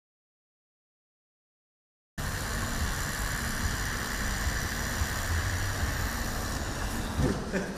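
Silence, then about two seconds in a steady outdoor rumble with hiss begins abruptly and runs on, the low, even noise of a city street or building site.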